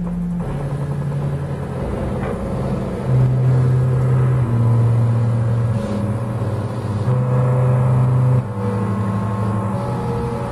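Stepper motors driving the lead screws of a CNC hot-wire foam cutter, a steady hum whose pitch jumps in steps every second or so as the axes change speed. It grows louder about three seconds in and again about seven seconds in.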